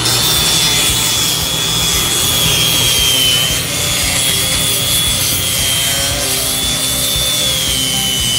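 Arbortech Mini Grinder sanding down overwood on a wooden inlay: a high, steady motor whine over the rasp of the disc on the wood. The whine dips slightly twice.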